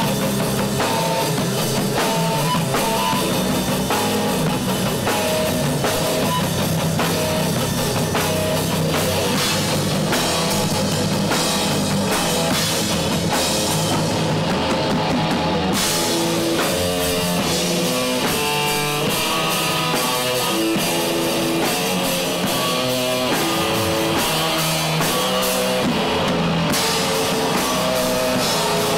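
Rock trio playing live, with electric guitar, bass guitar and drum kit.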